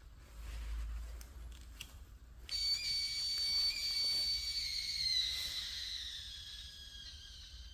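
High-pitched electronic whine from a Fiido T1 electric bike as it is switched on, starting abruptly, holding steady for a couple of seconds, then slowly falling in pitch.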